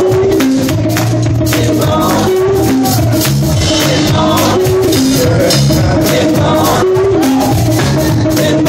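Live gospel praise music: singing over a band with a steady percussive beat and shaken tambourine, a short melodic figure repeating about every two and a half seconds.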